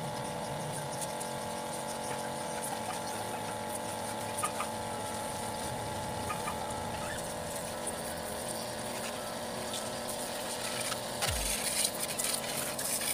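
Mini 12-volt DC washer pump running with a steady motor hum. A few seconds of louder crackling noise come about eleven seconds in.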